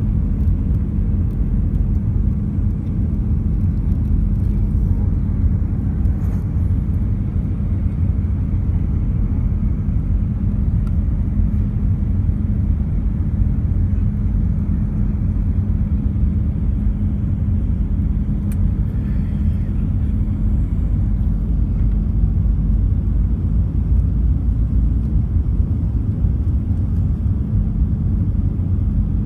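Jet airliner cabin noise on final approach, heard from inside the cabin: a steady low rumble of engines and airflow over the extended flaps, with a constant hum under it.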